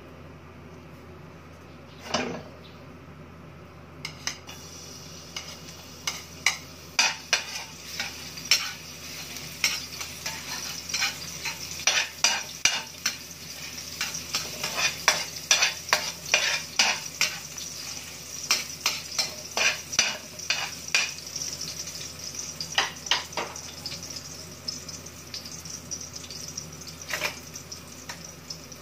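Chopped garlic sizzling in hot oil in an aluminium wok, with a metal ladle clinking and scraping against the pan as it is stirred. The sizzle starts about four seconds in; the clinks come thick and fast through the middle and thin out near the end.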